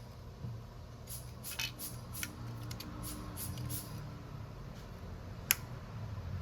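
Small hand-tool work on a phone during screen repair: a quick run of about eight short scratchy strokes, then a single sharp click near the end, over a low steady hum.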